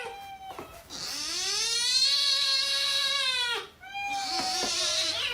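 A cat giving two long drawn-out meows. The first starts about a second in and lasts nearly three seconds, rising and then falling in pitch. The second is shorter and slides downward.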